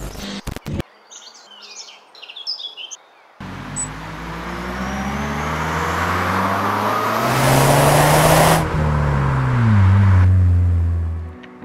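Mercedes SLK200 Kompressor's supercharged 2.0-litre inline-four through a custom exhaust, driving by: the engine note climbs steadily in pitch and loudness as the car accelerates toward the microphone, then drops in pitch as it passes, and cuts off abruptly near the end. Birds chirp and a few sharp clicks sound before the car is heard.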